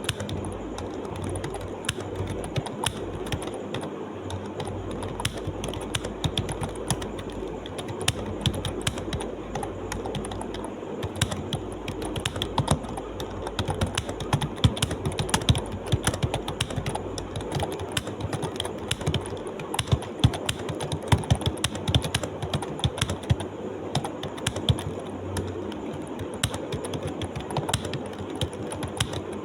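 Continuous typing on a computer keyboard: a steady, irregular patter of key clicks at about 44 words a minute.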